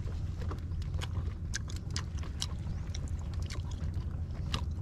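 A person eating shellfish: chewing and lip smacks, with many short, sharp clicks, over a steady low rumble.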